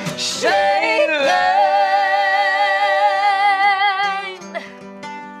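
A woman singing a wordless line that swoops up into one long held note with vibrato, over a strummed acoustic guitar. The voice stops about four seconds in and the guitar carries on alone.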